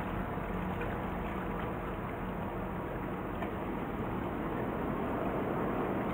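Steady low rumble of a boat's engine out on calm harbour water, with a few faint small ticks.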